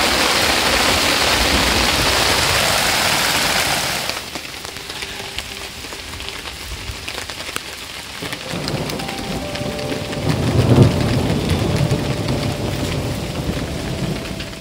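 Heavy rain and hail beating down hard, cutting abruptly about four seconds in to lighter rain with scattered drops. From about eight seconds in a low rumble of thunder builds, loudest around eleven seconds, then eases.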